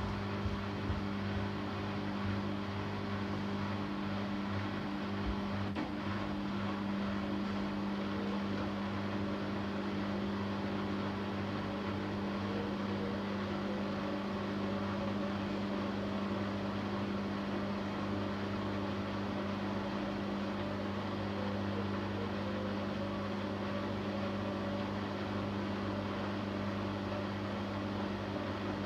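Siemens Siwamat iQ716 washing machine running with a steady motor hum, with a few light knocks in the first second or so.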